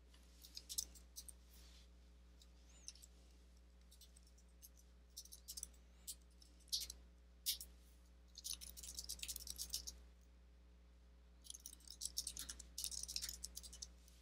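Computer keyboard being typed on: faint key clicks, scattered at first, then two long runs of rapid typing, one past the middle and one near the end.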